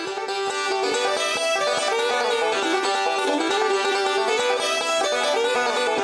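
Bluegrass music led by a banjo picking a quick run of notes.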